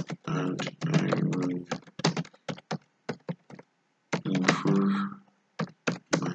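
Typing on a computer keyboard: runs of quick keystroke clicks. Twice, for about a second each, a low voice sounds over the typing.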